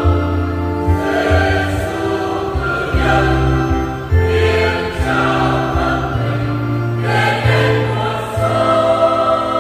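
Mixed church choir singing a Vietnamese Catholic communion hymn in parts, accompanied by a Yamaha Electone Stagea electronic organ holding steady bass notes.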